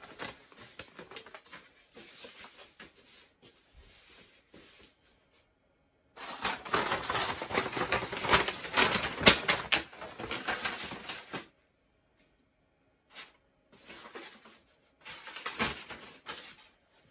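Butcher paper rustling and crinkling as it is handled at a heat press. The loudest stretch lasts about five seconds in the middle, with shorter spells of rustling near the start and near the end.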